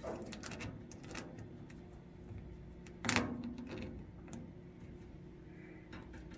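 Pliers and a spring hose clamp clicking as the clamp is pinched and worked along vinyl tubing onto a plastic bleed tee. The clicks are small and scattered, with one louder clack about three seconds in, over a faint steady hum.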